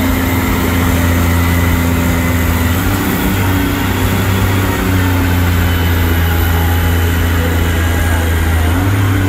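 Four-wheel-drive dual-wheeled farm tractor's diesel engine running hard under load as it drags a weight-transfer pulling sled. Its pitch steps up a little about three seconds in and again near the end.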